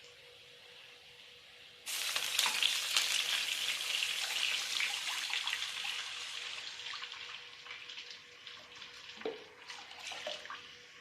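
Food dropped into hot oil in a pan: a sudden loud sizzle full of crackles and pops about two seconds in, slowly dying down. There are a couple of short knocks near the end.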